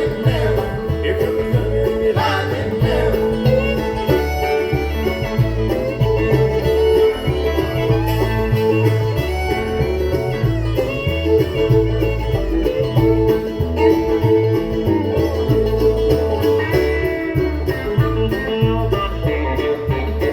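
Bluegrass band playing live: quick banjo and guitar picking over a steady low bass beat.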